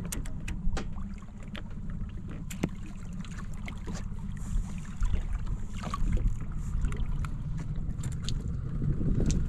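Small boat at sea: a steady low rumble of wind and boat noise, with scattered sharp clicks and knocks as a mangrove jack is lifted by hand over the gunwale.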